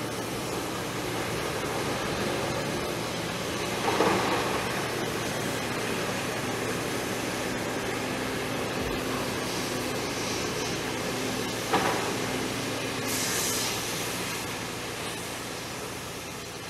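Railway track-works noise: a steady rushing hiss with machinery running beneath it, and two louder knocks about four and twelve seconds in.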